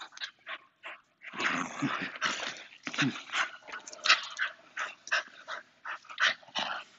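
Dog growling in play while tugging hard on a rope toy, a rough rasping run of growls with short breaks, starting about a second in. It is play growling in a tug game, not aggression.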